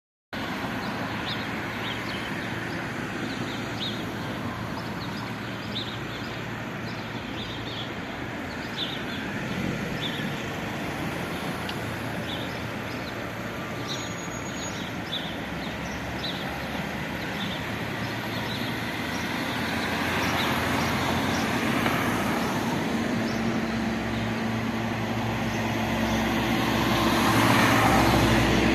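Single-engine propeller light aircraft droning overhead, over a steady background rumble; the engine drone grows louder in the second half as the plane comes closer.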